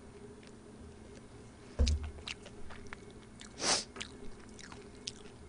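Close-miked mouth sounds of someone eating and drinking: soft chewing clicks, a dull thump about two seconds in, and a short breathy rush just before four seconds.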